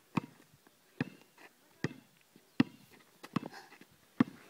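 A basketball dribbled on an asphalt court: a steady run of six sharp bounces, a little under one a second.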